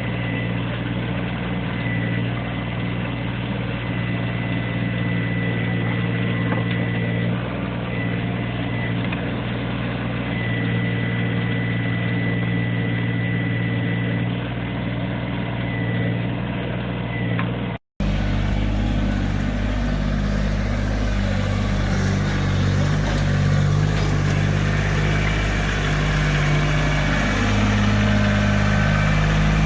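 Backhoe's diesel engine running steadily. After an abrupt cut about 18 s in, the engine note rises and falls as the machine works.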